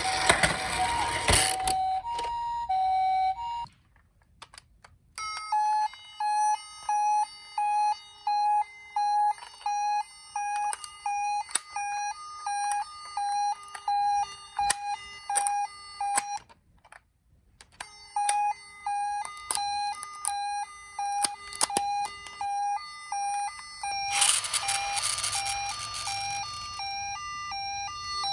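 Electronic sirens of toy ambulances. A two-tone hi-lo siren swaps between two pitches. After a short pause, a repeating electronic pattern of beeping tones comes about one and a half times a second; it breaks off briefly and resumes. Near the end a rattling noise comes in with the two-tone siren.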